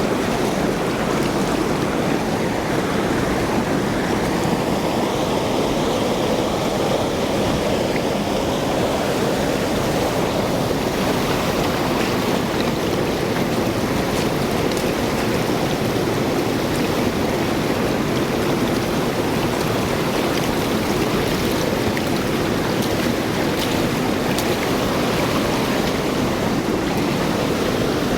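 Steady rush of running water, spraying as the last of the soap is rinsed off a dog's coat.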